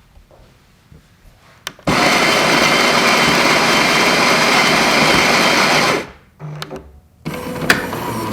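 Jura E8's built-in grinder grinding coffee beans: a loud, steady grinding noise that starts about two seconds in and stops abruptly four seconds later, followed by softer mechanical clunks and a click from the machine.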